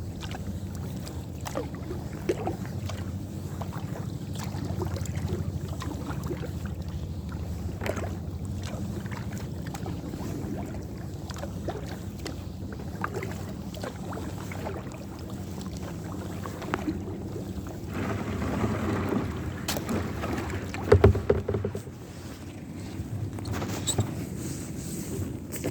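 Kayak paddling: water splashing and dripping from the paddle and lapping at the hull, over a steady low rumble of wind on the microphone. A few louder knocks come about 21 seconds in.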